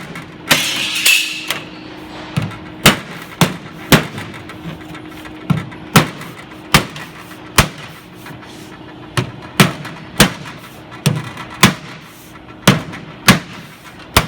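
Aluminum door-frame trim being tapped into place onto the frame's retention features: a series of sharp knocks at uneven intervals, roughly one a second. A brief scrape comes about a second in.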